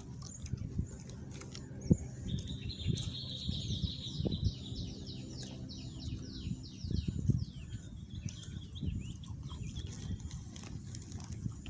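A bird singing a fast series of repeated high, downward-sliding notes, starting about two seconds in and lasting some five seconds. Underneath are a steady low rumble and a few soft knocks.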